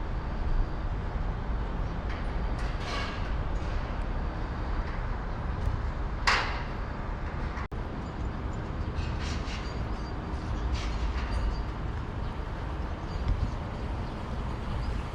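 Steady outdoor rumble of road traffic, with a short sharp hiss about six seconds in.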